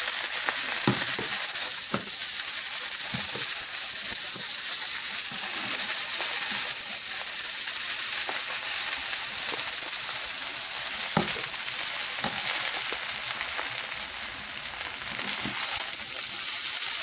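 Fried rice sizzling steadily in a hot oiled pan, with scattered clicks and scrapes of the utensil as it is stirred. The sizzle dips briefly near the end and then comes back up.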